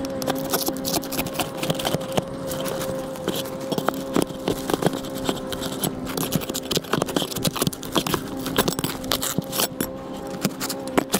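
Hand tools scraping and clinking against roof shingles and flashing in quick, irregular knocks, over a steady hum.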